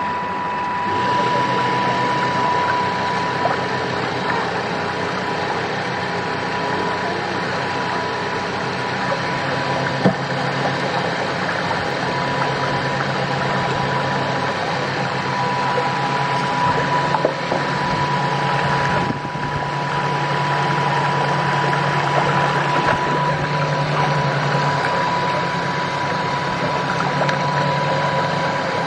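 RC tug boat's motor running steadily with a constant high whine and a low hum, with water rushing and splashing along the hull, heard from right on board the model.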